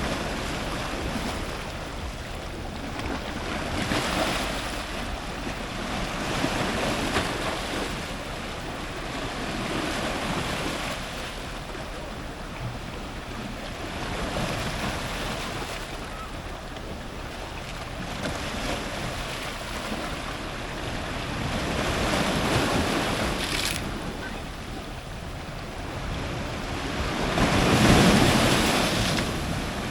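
Ocean surf breaking on rocks at the waterline: a constant wash of water noise that swells with each wave every few seconds. The biggest wave comes near the end.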